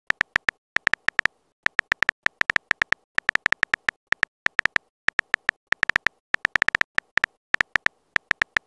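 Phone on-screen keyboard key-press clicks as a message is typed: short, high ticks, one per letter, in quick runs of several a second with brief pauses between words.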